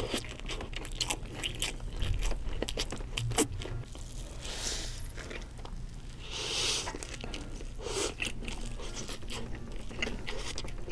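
Close-miked mukbang eating: biting into and chewing a stacked burger with a crispy fried, breaded layer, with many sharp crunches and wet chewing.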